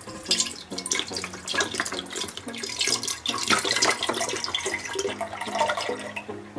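Milk poured into a deep pot in one continuous, splashing stream that tails off near the end, with background music under it.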